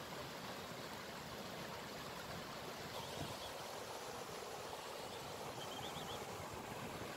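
Water spilling over a low rocky weir, a steady even rush.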